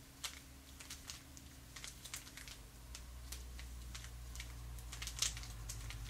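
Plastic 3x3 speedcube clicking as its layers are turned quickly by hand, a fast irregular run of sharp clacks, the loudest about five seconds in.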